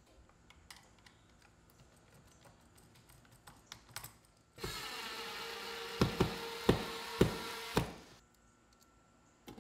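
Small clicks and knocks of a NEMA 6-50 receptacle and its copper wires being handled and pushed into a plastic electrical box. About halfway through, a steady hiss with a faint hum starts suddenly, carries five sharp clicks, and stops suddenly about three and a half seconds later.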